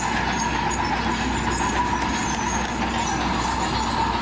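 Komatsu D31PX crawler bulldozer's diesel engine running steadily under work.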